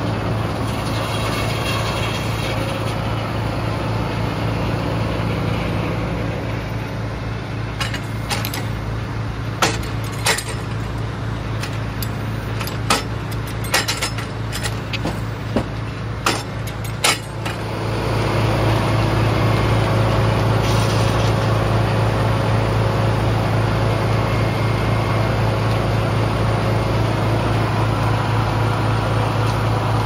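Frick circular sawmill running while sawing red oak: a steady machine drone with a deep hum. A run of sharp clacks comes in the middle, and about two-thirds of the way in the sound steps up louder and fuller and holds there.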